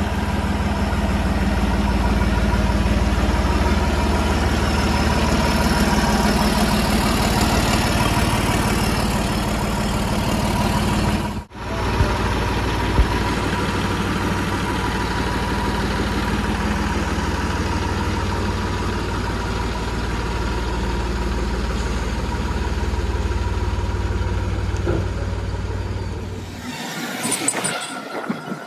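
Massey Ferguson tractor's diesel engine idling steadily, with a brief break about a third of the way through. Near the end the engine hum stops and lighter, uneven outdoor noise takes over.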